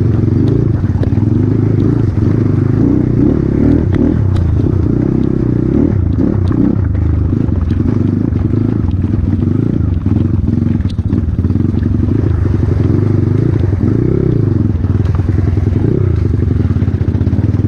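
Off-road motorcycle engine running loud, its revs rising and falling continually, with scattered clatter and knocks throughout.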